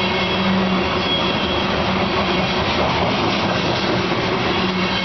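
Loaded coal cars of a long freight train rolling past close by: a steady rumble of steel wheels on the rails, with a low steady hum that drops away about a second in and comes back near the end.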